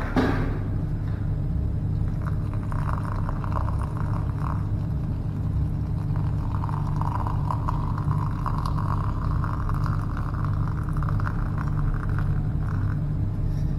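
Hot water poured from a flask into a stainless-steel cup of yerba mate, in a short pour and then a longer steady one, over a steady low rumble.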